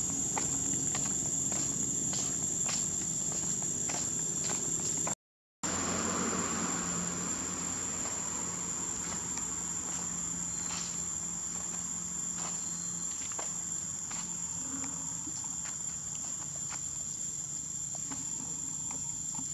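Steady high-pitched drone of an insect chorus, with light scattered clicks during the first few seconds. The sound cuts out completely for a moment about five seconds in, then the drone carries on.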